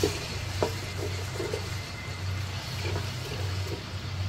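Spoon stirring ginger-garlic paste frying in oil in a pot, with two knocks of the spoon against the pot in the first second and softer scrapes after, over a faint sizzle and a low steady hum.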